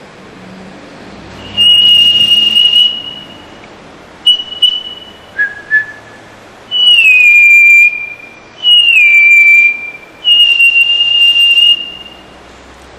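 A person whistling an imitation of the rufous-throated solitaire's (mountain whistler's) eerie, mournful call. There is a long high held note, a few short notes including two lower ones, then two notes that slide down in pitch, and another long held high note near the end.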